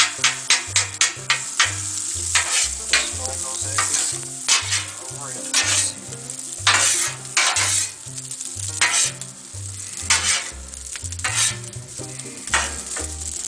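Spatula chopping and scraping eggs on a Blackstone flat-top griddle, the food sizzling in butter. It starts with quick taps, about five a second, then moves to slower, irregular scrapes.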